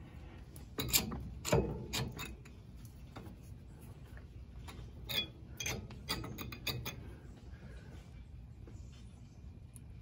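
Ford E150 front brake caliper being wiggled over its pads onto the bracket: scattered metal clicks and clunks, bunched about a second in and again past the middle, as it catches on the bottom slide.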